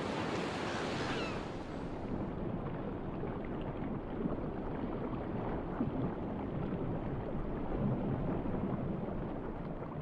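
Seawater ambience: open water lapping and splashing at the surface, then about two seconds in the hiss drops away and a duller, muffled underwater wash goes on.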